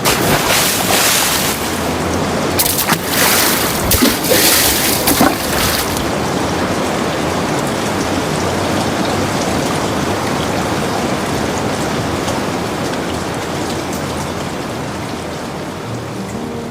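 A steady rushing hiss of noise, with louder crackling surges during the first six seconds, then settling and easing a little toward the end.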